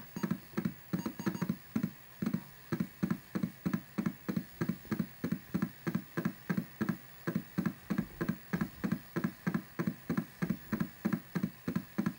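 Atari 810 floppy disk drive working on a disk as DOS files are written to it, chugging in a steady rhythm of about three to four pulses a second, like an old washing machine.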